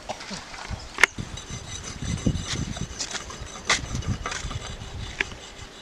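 Small knives cutting vegetables by hand, with a few sharp clicks and knocks. The loudest comes about a second in, over low rubbing and handling noise.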